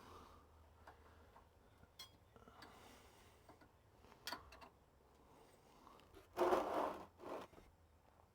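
A spanner clicking against the differential drain plug as it is worked loose, a few sharp metallic ticks. About six and a half seconds in comes a short, louder noisy burst, about a second long.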